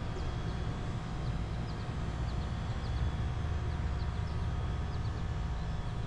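Outdoor field ambience: a steady low rumble with small birds chirping faintly, short high chirps repeating every half second or so.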